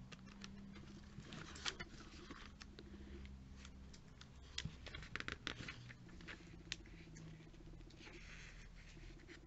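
Faint handling of a glossy paper catalogue: pages rustling and being turned, with many small scattered clicks and ticks, a brief soft rustle about eight seconds in, and a low steady hum underneath.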